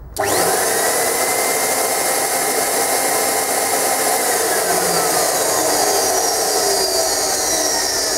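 Aussie Vac AV1400 ducted vacuum motor switching on suddenly and running at full speed, a steady loud rush of air with a whine that rises in the first second and then holds. It runs again on new carbon brushes, with a little bearing noise that is normal for a motor of its age.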